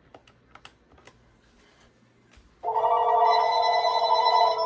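A few faint button clicks, then an office desk telephone rings for about two seconds with an electronic multi-tone ring for an incoming call, cutting off sharply near the end.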